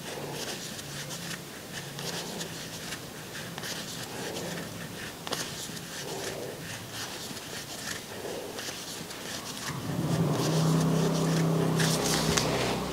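Faint scratching and rustling of a crochet hook drawing yarn through stitches, close to a clip-on microphone. About ten seconds in, a louder, steady low hum sets in and carries on to the end.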